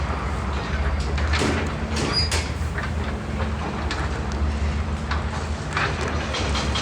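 Roadside ambience: a steady low rumble with scattered light clicks and clatter.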